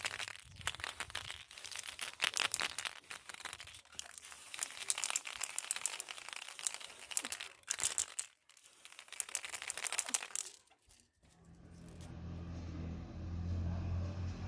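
Rough scraping and crackling on a workpiece for about ten seconds, then a short pause. Near the end a small motor starts up and runs with a steady low hum that grows louder.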